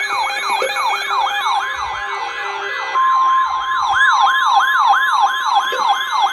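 Electronic siren yelping, sweeping up and down in pitch about three times a second. About three seconds in, a steady high tone joins it, the weather radio warning alarm tone of an Emergency Alert System severe thunderstorm warning. Both cut off together.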